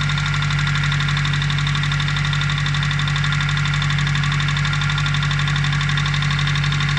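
Nissan SR20DE four-cylinder engine idling steadily with a fast, even knocking from the valve train, which the owner puts down to the hydraulic lash adjusters and too-thick oil after an oil change.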